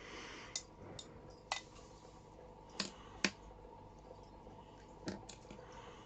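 Light, sharp clicks and taps of small plastic sling containers and tools being handled, about half a dozen spread irregularly.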